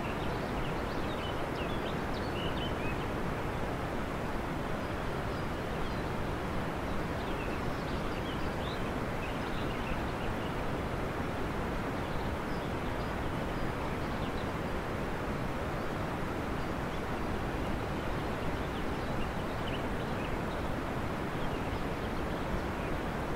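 Steady rushing noise with faint, short high chirps scattered through it.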